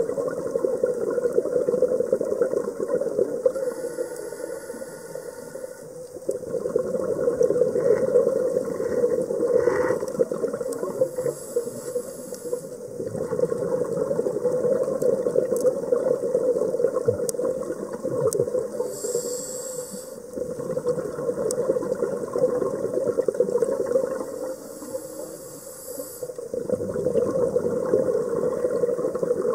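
Scuba diver's regulator heard underwater: bubbling, crackling exhalations that swell and fade in slow breathing cycles several seconds apart.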